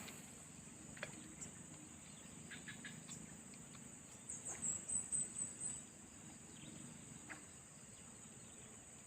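Insects trilling steadily at a high pitch, with a quick run of sharper chirps around the middle and a few faint clicks.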